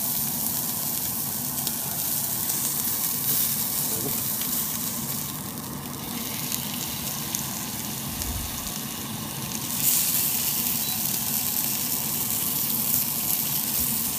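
A thick rump steak sizzling in a hot frying pan: a steady frying hiss that grows louder about ten seconds in.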